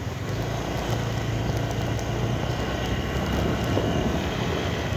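Motorcycle engine running steadily at low speed, a constant low hum under road noise.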